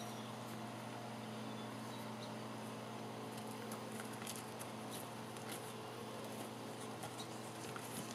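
Faint outdoor ambience: a steady low hum, with scattered light clicks and taps from about three seconds in.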